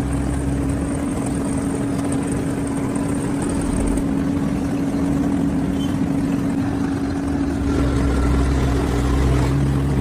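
Asphalt paver running: a steady engine hum with a constant droning tone over a low rumble, the rumble growing stronger in the last couple of seconds.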